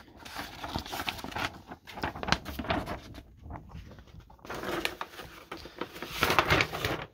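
Large folded paper poster being unfolded and handled: crisp rustling and crinkling of paper in two spells, with a short lull about halfway.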